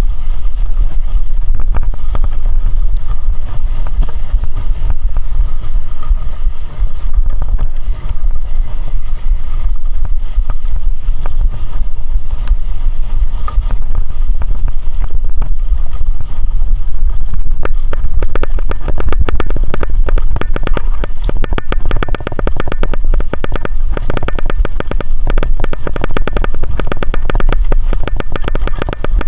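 Heavy wind and road rumble from riding a moving vehicle. A fast clicking rattle comes in about two-thirds of the way through.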